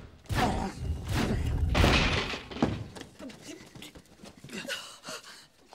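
A door being forced in: loud crashing, thuds and breaking for a couple of seconds, loudest about two seconds in, then dying away.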